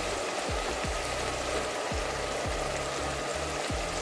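Browned onions and freshly added turmeric sizzling steadily in hot oil in an aluminium pot.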